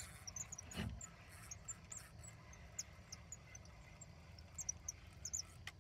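Small birds chirping faintly: short, high chirps scattered irregularly throughout, over a low steady rumble, with a single knock about a second in.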